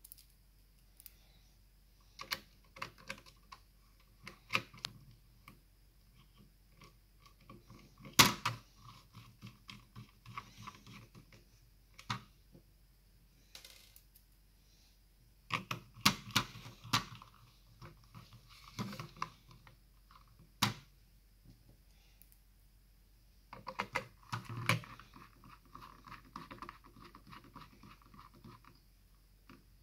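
Clicks, taps and knocks of hands and a screwdriver working on a plastic gel blaster receiver, with stretches of fine rapid ticking as screws are driven back in. A few sharper knocks stand out, about a third and halfway through and again near the end.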